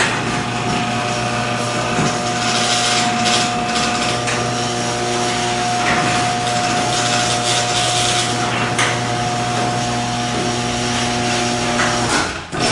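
Electric garage door opener motor running as it drives the garage door down, a steady mechanical drone with rubbing and rattling of the door, cutting off about twelve seconds in as the door shuts.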